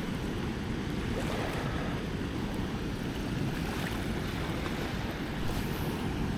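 Flooded river rushing steadily past in high, fast water, a low, even roar, with some wind on the microphone.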